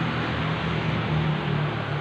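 Suzuki Satria FU 150's single-cylinder four-stroke engine idling steadily and smoothly after an engine rebuild.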